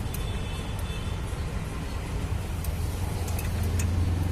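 Steady low hum of a running motor-vehicle engine, with a few faint ticks.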